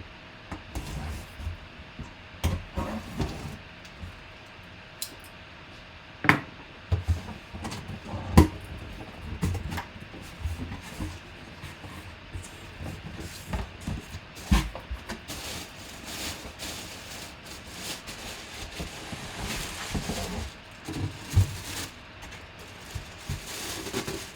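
Handling noise from a boxed football helmet being opened and taken out of its packaging: scattered knocks, scrapes and rustles, with a few sharper knocks about six, eight and fourteen seconds in.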